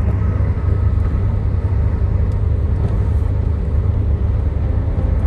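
Steady low rumble of road and engine noise inside the cabin of a Daihatsu Terios automatic cruising on a highway.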